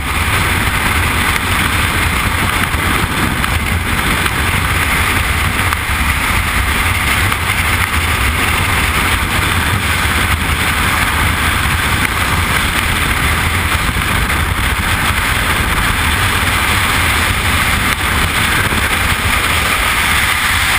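Steady, loud rush of freefall wind buffeting the microphone of a skydiver's helmet camera.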